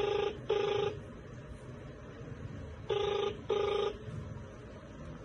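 Ringback tone of an outgoing mobile phone call, heard from the phone's speaker: a double ring ('ring-ring') at the start and again about three seconds in. The called phone is ringing but has not yet been answered.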